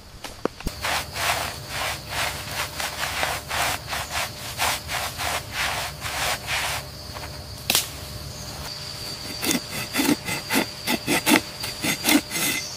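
A cloth rubbing rhythmically over rubber-tree bark, about two strokes a second, then a curved tapping knife scraping quick strokes into the bark from about nine seconds in. A steady high whine runs underneath.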